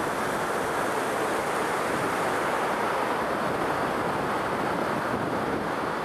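Mountain stream rushing over rocks and small cascades: a steady, even sound of running water.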